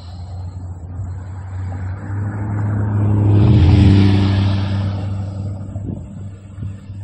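Norfolk Southern freight train's lead diesel locomotives passing close by, their engines running with a steady low drone. The sound swells to its loudest about four seconds in, with a rush of hiss as the units go by, then fades.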